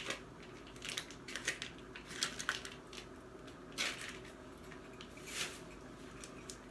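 Plastic meat packaging being handled and cut open with a knife: scattered short crinkles and rustles.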